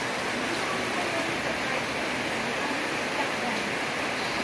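Steady hissing background noise with faint voices in the distance; no gunshot.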